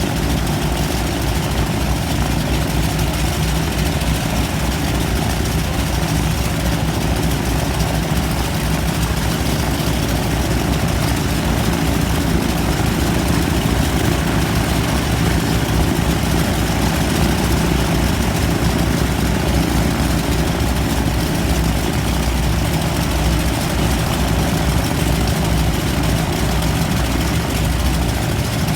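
Radial engines of a Beech C-45 (Pratt & Whitney R-985 Wasp Juniors) running steadily at an unchanging speed, with propellers turning.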